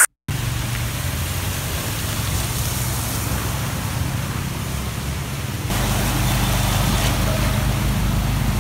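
Motorbike traffic riding through a flooded street: steady engine hum under a noisy hiss of spray. It starts after a brief dropout and gets louder and deeper about six seconds in.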